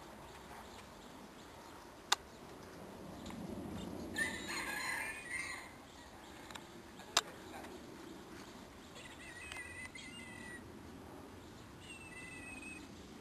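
Bird calls: one longer call with several pitches about four seconds in, lasting about a second and a half, then shorter whistled calls later on. Two sharp clicks stand out, about two seconds in and about seven seconds in.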